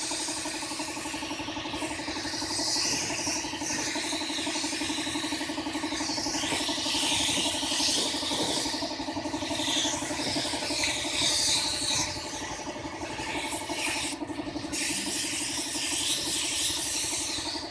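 Air spray gun hissing in long bursts with short breaks as primer is sprayed onto a plastic bumper. Under it, the steady hum of a motor running, likely the air compressor feeding the gun.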